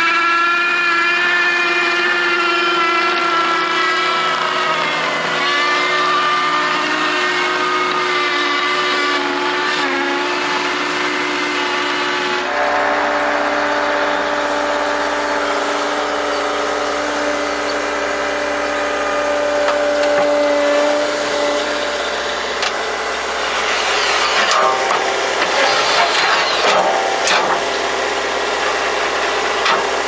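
John Deere 333G compact track loader's diesel engine running, its pitch rising and falling as it drives. About twelve seconds in, it changes to a steadier engine and hydraulic drone while the tree spade works, with a few sharp knocks and rattles near the end.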